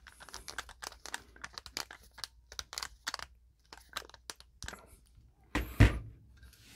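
A screwdriver tightening the cable clamp screw of a steel octagon electrical box: a run of quick metal scraping clicks as the screw turns. Near the end comes one louder knock as the screwdriver is set down on the table.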